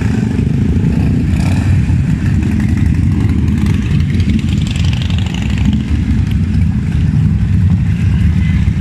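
Kawasaki Vulcan 900's V-twin engine running steadily.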